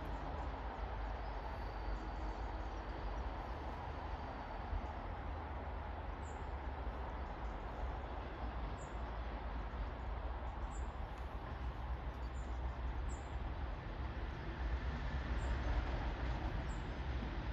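Class 37 diesel locomotive approaching at a distance: a low, steady rumble that grows louder over the last few seconds as it draws near. Short bird chirps sound several times over it.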